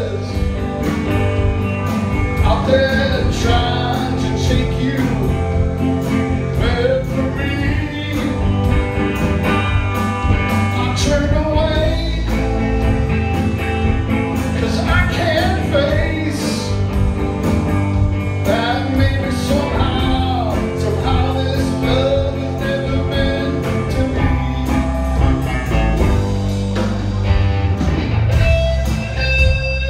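Live rock band playing: male lead vocal over electric guitars, bass and drums. Near the end the singing stops and the electric guitar carries on.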